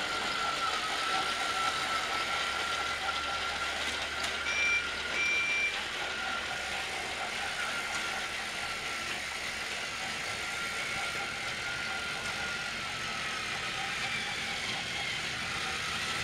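Battery-powered Trackmaster toy train motors running steadily, a continuous whine over the rattle of plastic wheels on track. About four seconds in, a click and then two short high beeps.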